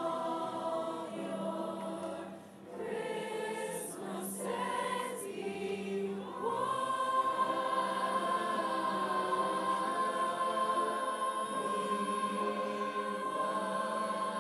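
A large choir of young singers singing in sustained notes, with a short dip a couple of seconds in. From about six and a half seconds in, the voices hold a long steady chord.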